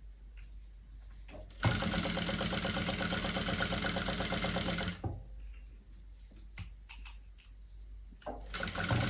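Jack F5 industrial sewing machine stitching at speed in two bursts: one of about three seconds starting a little over a second in, then, after a pause with a few light clicks, a second run starting near the end.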